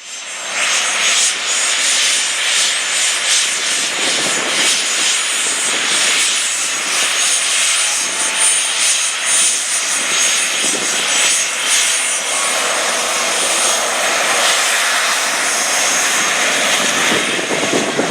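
Twin-turbofan Dassault/Dornier Alpha Jet flying a display, a steady jet roar with a thin high whine on top.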